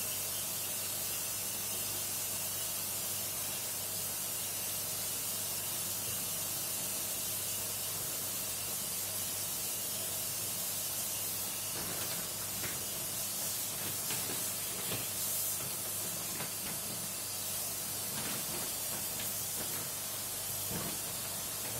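Water spray hissing steadily as the indoor unit of a split air conditioner is washed, with a steady low hum underneath. Faint ticks and knocks come in during the second half.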